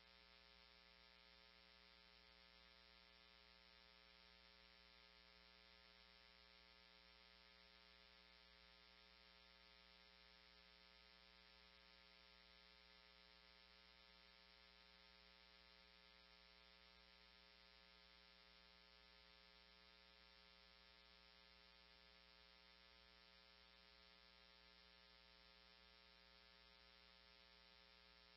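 Near silence: a faint, steady electrical hum with no radio traffic.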